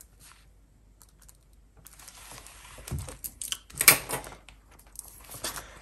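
Faint scratching of a pen writing on paper. From about two seconds in come rustling and sharp clicks as the pages and plastic cash envelopes of a ring binder are turned and handled, loudest about four seconds in.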